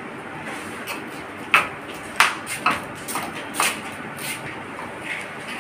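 A handful of short, sharp clinks and knocks of metal dishes being handled and set down on a table.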